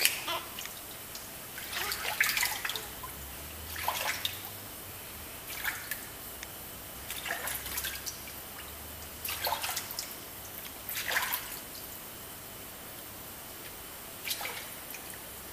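Water from a running tap splashing in short bursts every couple of seconds as a gloved hand rinses a newborn baby's hair over a sink, above the steady trickle of the tap.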